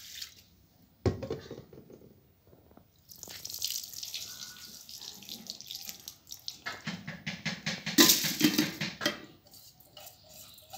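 Water being poured and sloshed in steel bowls and a pot while rice is washed, with a sharp knock about a second in and the loudest splashing about eight seconds in.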